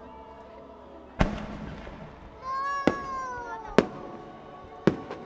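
Aerial fireworks shells bursting: a loud bang with a rumbling tail about a second in, then three sharper single reports roughly a second apart, over faint show music.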